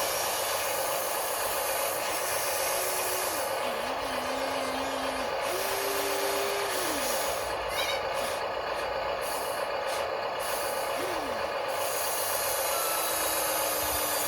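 Small electric motors and gearboxes of radio-controlled scale excavator and loader models whirring steadily, with short motor whines that rise and fall in pitch as the functions start and stop.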